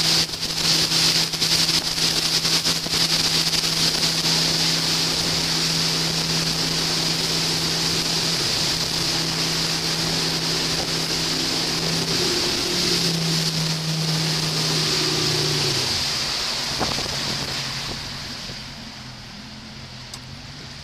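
Nautique wakeboard boat's inboard engine running steadily at towing speed, with wind and rushing water. About sixteen seconds in the engine note drops away, and the wind and water noise fades.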